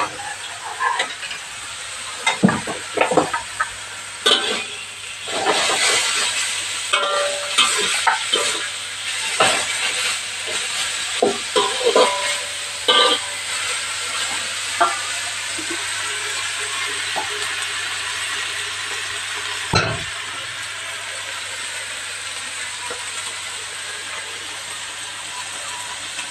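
Cooking at a gas stove: a metal spatula and utensils clink, knock and scrape against a wok and pot over a steady sizzling hiss. The clatter thins out after about fifteen seconds, leaving the sizzle, with one sharp knock near twenty seconds.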